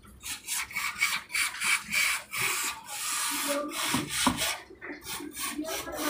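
Aerosol carburettor cleaner sprayed through its red straw into a motorcycle's intake/injector holder, in a rapid series of short hissing spurts, about four a second, that turn into one steady spray near the end.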